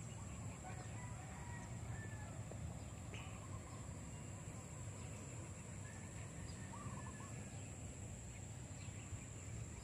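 Faint riverside ambience: a low rumble of wind on the microphone, a steady high hiss, and a few faint, brief bird calls.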